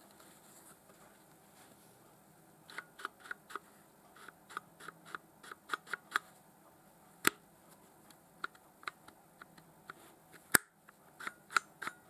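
Light clicks and ticks of a polymer pistol holster and its belt-attachment swivel being handled and turned, after a quiet start. Two sharper, louder clicks stand out, one about midway and one near the end.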